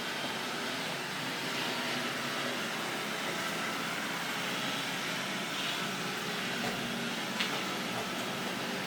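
Robot vacuum running with a steady whirring hiss of its motor and brushes, with one small click about seven seconds in.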